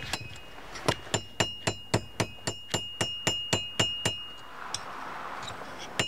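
Hand hammer striking hot iron on an anvil at about four blows a second, the anvil ringing after each blow, as the bar is hammered into a 90-degree bend. The hammering pauses for about two seconds near the end.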